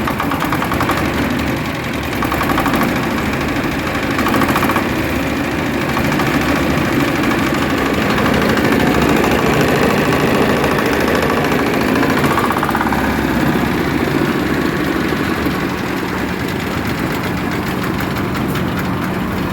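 Small single-cylinder hopper-cooled diesel engine running steadily with an even, knocking beat.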